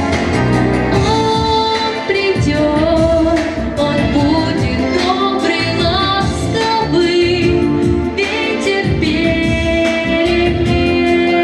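A young woman singing live, holding long notes with vibrato, over instrumental accompaniment with a steady beat.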